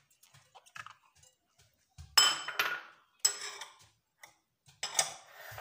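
Three sharp clinks against a glass mixing bowl, each with a short ring, as ingredients are tipped in, with a few faint clicks before them.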